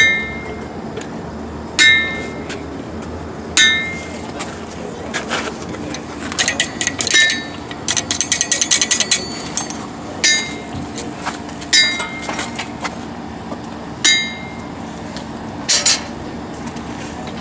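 Hammer blows ringing on an anvil, spaced a couple of seconds apart, with a quick run of lighter metallic clinks in the middle.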